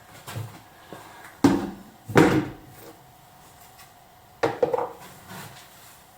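A handful of separate wooden and metal knocks and clatters, the loudest a pair about one and a half to two seconds in and another pair near four and a half seconds, from woodworking tools and the bowl being handled at a pole lathe.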